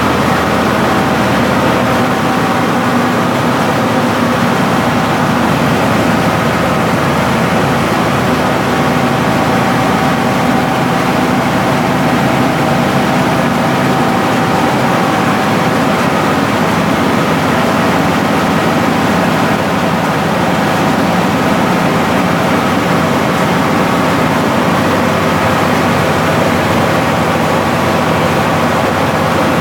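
Rice milling machine running steadily: a loud, unbroken mechanical din with a constant hum that does not change throughout.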